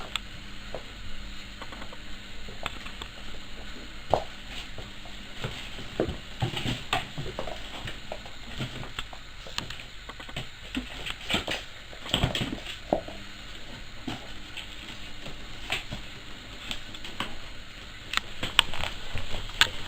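A cat scrabbling about in a box: irregular scratches, rustles and light knocks.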